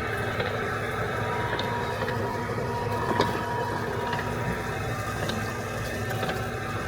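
Automatic hotteok dough-forming machine running with a steady mechanical hum and a few short clicks.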